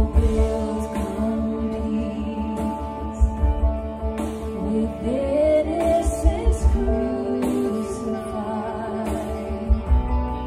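A band plays a contemporary worship song: women's voices singing over acoustic guitar, keyboard and drums, with steady drum beats underneath.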